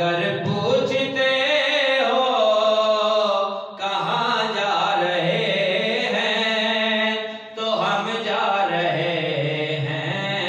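A man's solo voice reciting an Urdu qaseeda (manqabat) in a chanted, melodic style, drawing out long held notes. There are short breaks for breath about four and seven and a half seconds in.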